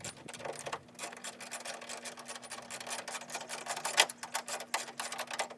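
Ratchet wrench with a 10 mm socket clicking rapidly in quick runs as a headlight mounting bolt is tightened, with one sharper click about four seconds in.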